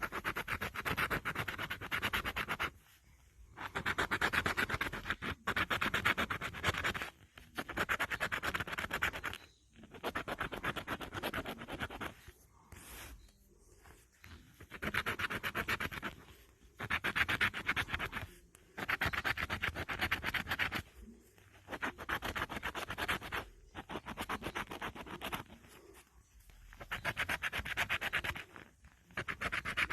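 Lottery scratch-off ticket being scratched with rapid short strokes, in bursts of one to three seconds separated by brief pauses.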